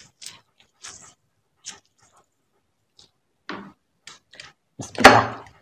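Close-miked wet, sticky handling of food: scattered short crackles and squelches as a lime is squeezed and fried fish is pulled apart with the fingers. A much louder wet squelch comes about five seconds in.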